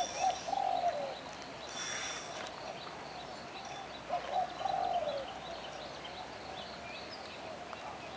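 A dove cooing in two short phrases, one right at the start and another about four seconds in, with small birds chirping.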